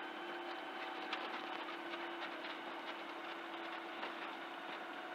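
C42 microlight's engine running steadily at low power while the aircraft lines up on the runway, heard through the cockpit intercom as an even hum with faint ticks.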